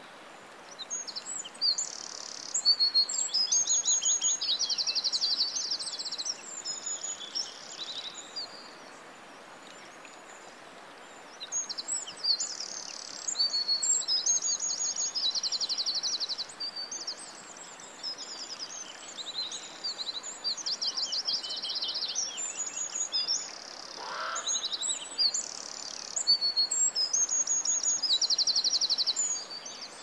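Small birds chirping and singing in high, rapid trills over a faint steady hiss. The song comes in three similar bouts with quieter gaps between them.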